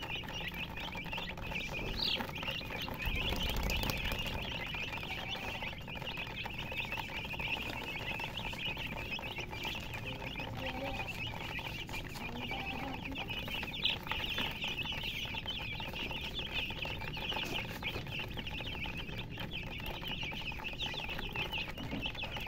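A group of baby chicks peeping continuously in many overlapping high-pitched chirps. A brief low rumble comes about three seconds in, and a single sharp click a little past halfway.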